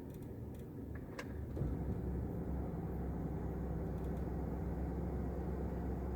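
2000 Toyota Camry's 2.2-litre 5S-FE four-cylinder engine idling low and rough, stumbling unevenly, then about a second and a half in it picks up and runs louder and steadier. The rough low idle is the misfire that the owner is trying to pin down, which the forum thread puts on cylinder 1.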